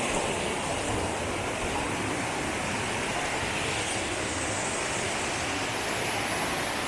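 Steady, even rush of water from a small river waterfall running high.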